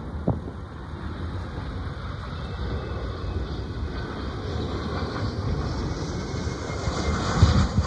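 A twin-engine regional jet on landing approach with its gear down, its engines' hissing jet noise growing louder as it draws near. Wind buffets the microphone near the end.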